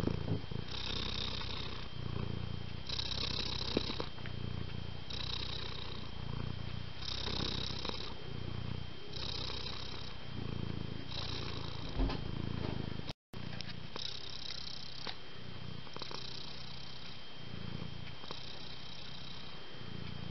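Tabby cat purring while asleep, the purr alternating a low rumble and a breathy hiss with each breath, about one cycle every two seconds. The sound cuts out for a split second about 13 seconds in.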